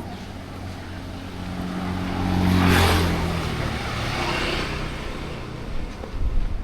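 A motor vehicle's engine passing by: the hum grows louder, peaks about three seconds in, then fades away.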